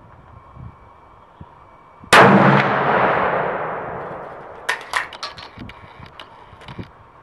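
A single shot from a 12-gauge slug gun firing a Winchester Partition Gold sabot slug, about two seconds in: one very loud blast that echoes under the range's metal roof and dies away over about two seconds. About a second and a half later comes a quick run of metallic clicks and clacks as the action is cycled.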